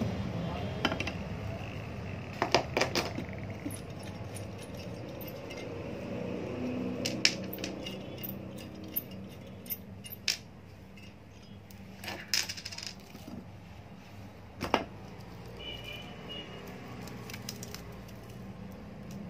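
Small metal clicks and clinks at irregular intervals: screws and washers being undone from an electric iron's soleplate cover plate with a screwdriver and set down on the bench.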